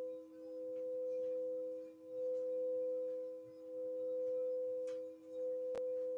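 Crystal singing bowl being sung by circling a mallet around its rim: a steady ringing tone with a weaker lower tone beneath, swelling and dipping about every one and a half seconds. A single sharp click near the end.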